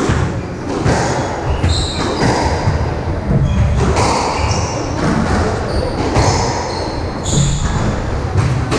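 Squash rally: repeated sharp knocks of the rubber ball off racket strings and the court walls, echoing in the enclosed court, with short high squeaks of shoes on the wooden floor.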